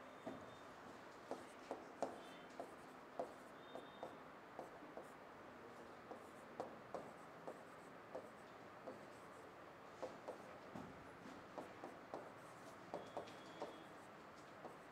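Faint sounds of writing by hand: irregular short taps and scratching strokes, one to three a second, over a steady low hiss.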